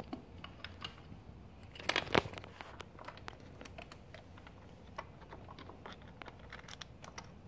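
Scattered light clicks and taps of a metal clutch slave guard and its bolts being handled and fitted by hand on a dirt bike's engine case, with two louder clicks about two seconds in.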